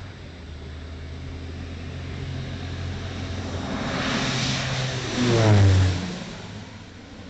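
Air Tractor AT-502 turboprop crop duster flying past. It grows louder to a peak about five and a half seconds in, its pitch dropping sharply as it goes by, then fades away.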